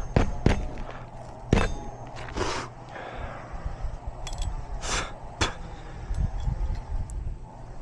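Scattered sharp knocks and scraping of hand work on asphalt roof shingles, the knocks coming at irregular intervals over a low steady rumble.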